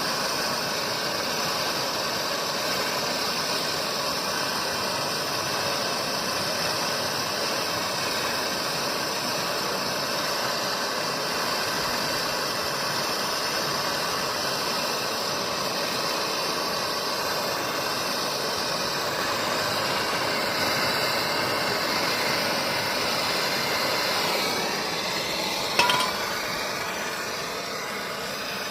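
A machine running steadily, a hiss with a fixed hum of several tones; the sound shifts and there is one sharp click near the end.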